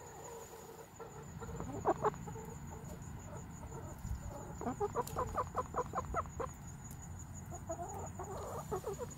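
Hens clucking close by: a single short call about two seconds in, then a quick run of clucks, about four or five a second, from about halfway, and a few more clucks near the end.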